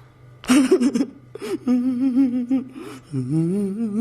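A man's wordless cries of distress: a short harsh burst of breath about half a second in, then a drawn-out wavering wail, and near the end a groan whose pitch slides up.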